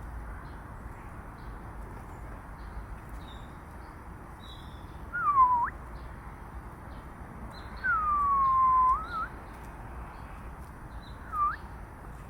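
Three loud whistled calls, each gliding down to a low pitch and then flicking sharply up. The second one, about eight seconds in, is the longest. Faint high chips sound in between over a steady hiss.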